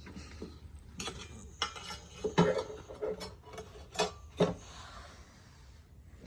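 A steel anvil struck lightly several times at an uneven pace, each clink followed by a short metallic ring.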